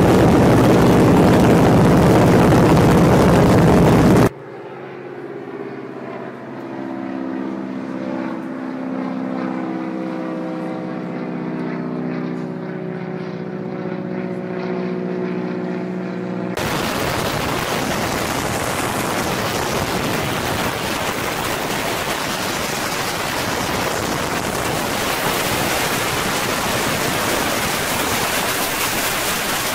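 Boeing PT-17 Stearman biplane's radial engine and propeller with heavy wind noise in the open cockpit, loud and steady. About four seconds in this cuts to the biplane heard from the ground, a quieter distant engine drone with steady tones, and at around sixteen seconds back to the loud, steady open-cockpit wind and engine noise.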